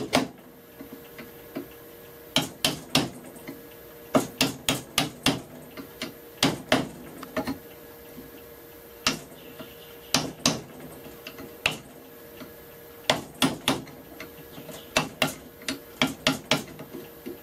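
A chisel trimming the mouth of a wooden rebate-plane body straight: short runs of sharp knocks and taps on the wood, about every second or two.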